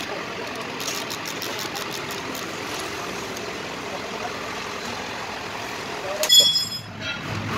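Quick runs of ratchet clicks as bolts are run down on the flange of a Komatsu HPV95 hydraulic pump, over a steady workshop machinery drone. About six seconds in comes one short, loud metallic ring.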